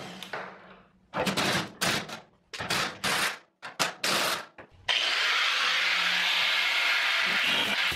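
A cordless impact driver run in about five short bursts on rusty wheelbarrow bolts. About five seconds in, an angle grinder starts suddenly and runs steadily, cutting a notch into a carriage bolt head.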